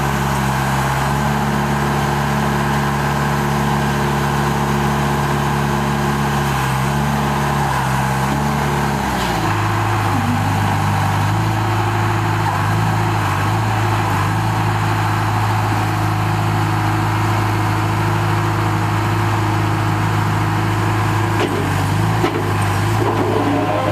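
John Deere 310G backhoe's 4045 diesel engine running steadily. Its pitch drops about nine seconds in and stays lower after that.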